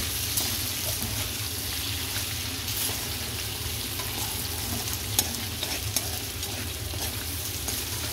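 Thin potato slices frying in ghee in a steel wok, with a steady sizzle as a metal slotted spoon stirs and turns them, scraping against the pan. The spoon clinks sharply on the metal about five and six seconds in.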